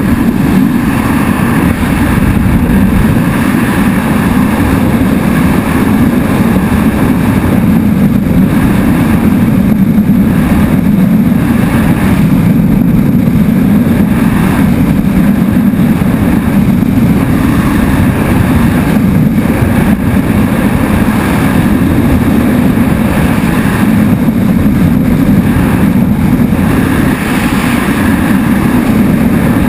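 Freefall wind rushing over a skydiver's camera microphone: a loud, steady, deep rumbling rush.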